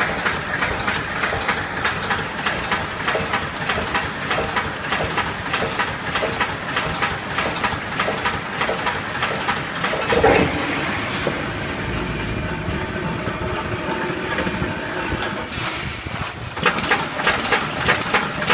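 Automatic chicken cage wire mesh welding machine running, its welding and feeding strokes making rapid, even clanks several times a second. About ten seconds in there is a louder jolt, then a smoother stretch with fewer clanks before the rapid clanking starts again.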